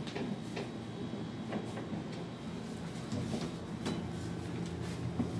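Faint, scattered clicks and light knocks of dishes and utensils being handled, over a low steady room background.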